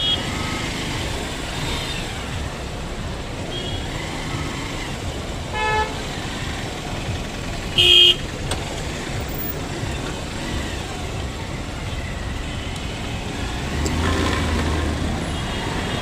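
Motorcycle ride through road traffic, with steady wind and road rumble buffeting an earphone microphone. Vehicle horns honk now and then: a short honk a little before halfway and one short loud blast about eight seconds in.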